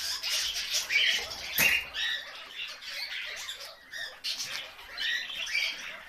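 Guinea pigs squeaking in a run of short, high-pitched calls, with a sharp click about a second and a half in.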